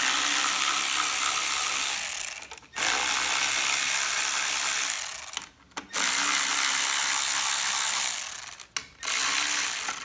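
Cordless electric 1/4-inch drive ratchet with a 5/16 socket running, backing out the screws of a Briggs & Stratton twin-cylinder engine's blower housing. It runs in four spells of two to three seconds each, with short breaks between.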